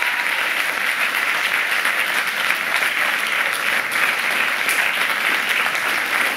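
Audience applauding steadily: many hands clapping together in a dense, even patter.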